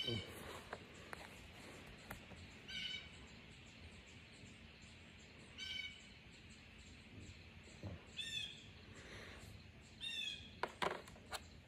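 A bird calling: four short chirps spaced about two and a half to three seconds apart, with a few faint knocks near the start and toward the end.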